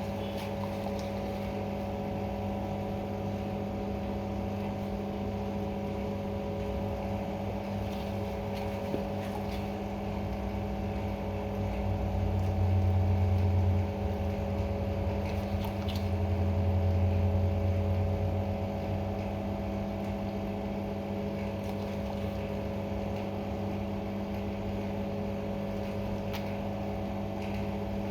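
Steady machine-like hum with a low drone that swells louder twice around the middle, with a few faint ticks.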